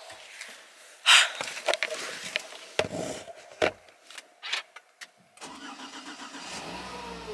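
A thump about a second in and a few knocks and clicks as someone gets into a car. Near the end the car's starter cranks in a fast flutter for about a second before the engine catches and settles into a steady idle, a cold-weather start in snow.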